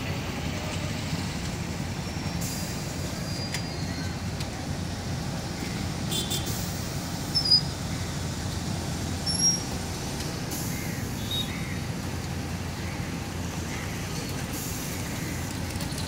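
Steady low rumble of idling vehicle engines. Two brief sharp high-pitched sounds stand out about two seconds apart near the middle, with a few fainter short chirps.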